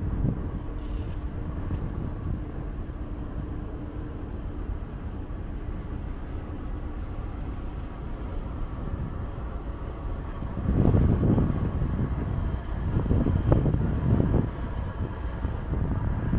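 Wind buffeting the microphone over a steady low rumble with a faint hum, the gusts growing much stronger about ten seconds in.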